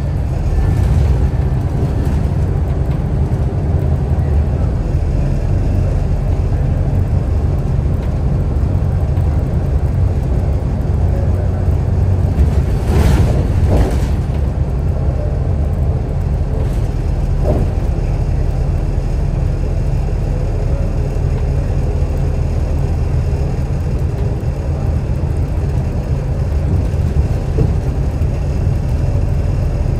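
Scania L94UB bus's 9-litre turbocharged inline-six diesel (Scania DSC9) running with a steady low rumble. A short rush of noise breaks in about halfway through.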